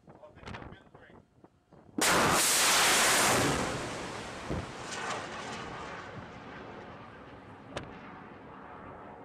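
A missile launching from a warship's forward vertical launch cells: a sudden loud rocket-motor roar about two seconds in that holds for about a second and a half, then fades away over several seconds.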